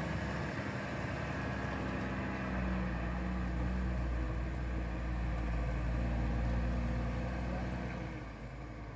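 Diesel engine of a log-laden timber truck running at low speed as the truck pulls slowly past. It grows louder a few seconds in and drops away near the end.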